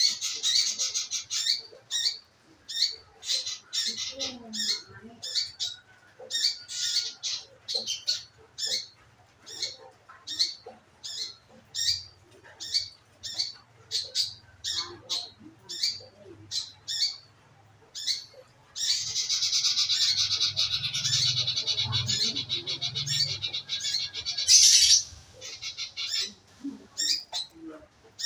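A manggaran bird calling, used as a lure to get another bird to sing. It gives short, sharp, high calls about twice a second, then a dense, continuous chattering run of several seconds in the second half, before the short calls resume.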